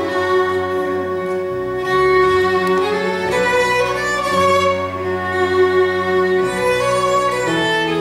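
Violin played with a bow: a slow melody of long, sustained notes. Low held notes sound underneath, changing every second or two.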